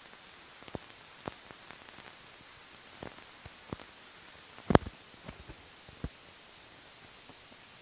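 Surface noise of an old film print's soundtrack: a steady hiss with scattered clicks and pops from dust and scratches on the film, one much louder pop nearly five seconds in.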